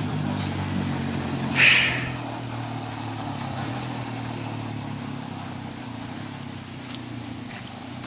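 Suzuki 230 Quadrunner ATV's single-cylinder four-stroke engine running at a steady pitch, slowly fading as the quad moves away. A brief loud burst of noise about one and a half seconds in.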